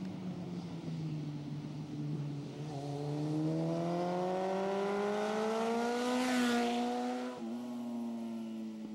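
A motorcycle engine accelerating as the bike approaches, its note climbing steadily for several seconds. Its pitch drops abruptly near the end, then it runs on steadier and lower.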